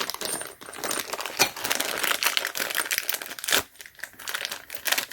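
Small plastic hardware bags crinkling as they are handled to get out assembly screws, with many quick light clicks.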